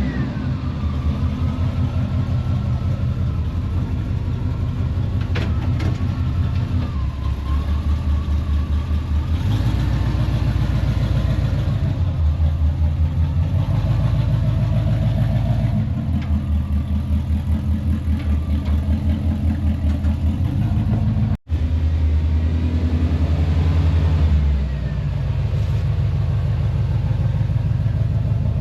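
Chevrolet C10 pickup's engine running through a newly installed aftermarket exhaust, a low pulsing exhaust note that swells and eases several times. There is a brief dropout about three-quarters of the way through.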